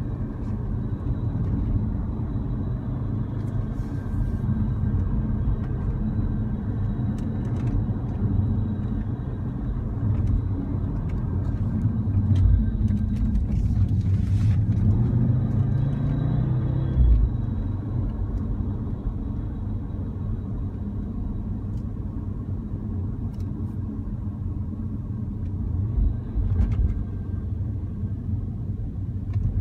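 Cabin noise of an Audi RS Q3 on the move: steady engine and road rumble from its five-cylinder, with the engine pitch rising and then dropping away about midway, and faint scattered ticks and a thin high whistle over it. The owner reports a whistling, rattling noise from the air-conditioning duct in this car.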